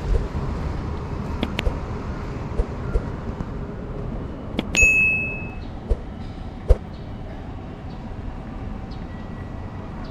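Outdoor city ambience, a steady low rumble, with a few sharp clicks and, about five seconds in, one bright bell-like ding that rings briefly. Two more short knocks follow a second or two later.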